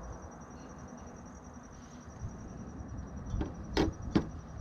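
Faint steady background noise, then three light taps near the end, the last two the sharpest.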